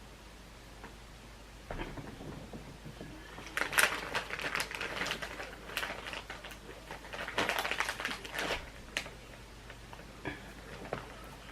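Irregular crinkling, rustling and clicking from food and its wrapping being handled, starting about two seconds in and busiest in the middle.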